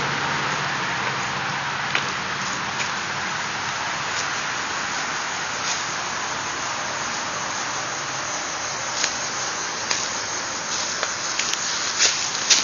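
Steady noise of freeway traffic, with footsteps crunching on dry leaves and dirt that come louder and more often near the end.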